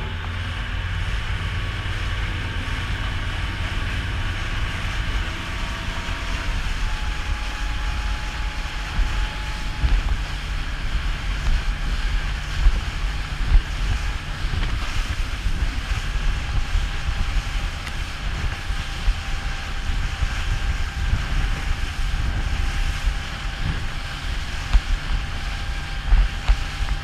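Motorboat under way at speed: its engine runs with a steady whine that rises in pitch at the start as the boat speeds up, under heavy wind buffeting on the microphone and water rushing and splashing past the hull.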